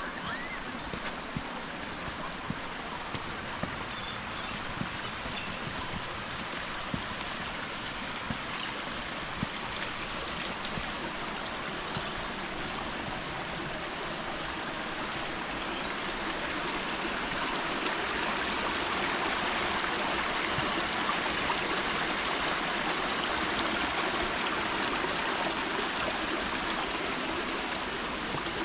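Small stream running, a steady splashing rush that grows louder about halfway through, with faint ticks of footsteps early on.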